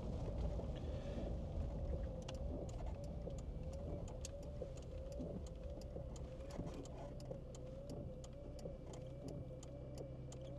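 Land Rover Discovery Td5's five-cylinder turbodiesel running at low speed, heard from inside the cabin. From about two seconds in, a light regular ticking comes in, about three ticks a second.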